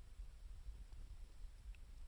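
Wood fire of scrap 2×4 lumber and scavenged wood burning quietly, with a couple of faint pops over a low, steady rumble.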